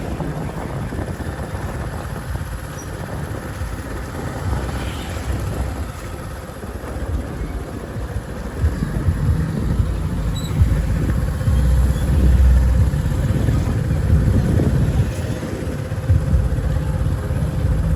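Road traffic: a low, continuous rumble of motorbikes and cars going by, growing louder about halfway through.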